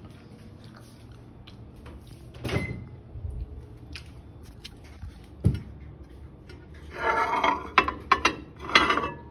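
Household knocks and clatter: a dull thump, a sharp knock about halfway through, then two short bursts of rattling clatter near the end.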